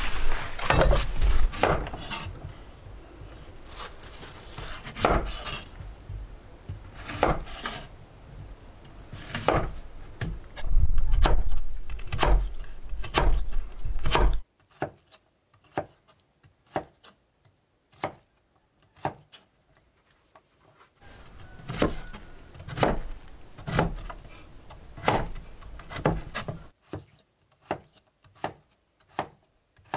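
Kitchen knife chopping a peeled potato on a wooden cutting board: sharp knocks of the blade on the wood, settling into a steady rhythm of about one to two chops a second. A low rumble runs under the first half and stops abruptly about halfway through.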